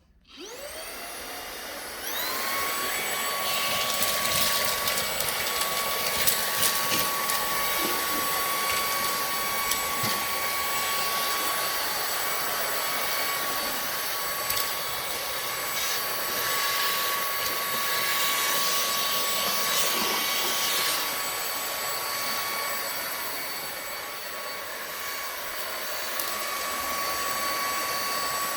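Moosoo cordless handheld vacuum cleaner switched on, its motor whine rising as it spins up, then climbing again about two seconds in as the boost setting is pressed. It then runs steadily at full power, with scattered crackles and ticks of debris being sucked up.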